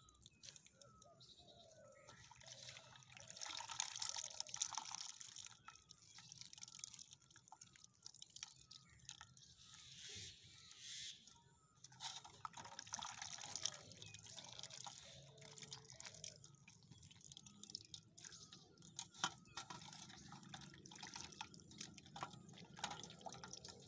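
Hands squeezing and swishing chopped bitter gourd in a metal basin of water, with water dripping and splashing back into the basin: the juice is being wrung out to take away the bitterness.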